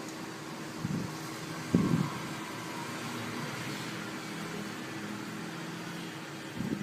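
Steady fan-like room hum with two short, low knocks, a faint one about a second in and a louder one just before two seconds, as a pet otter grapples with a metal chair leg on a tile floor.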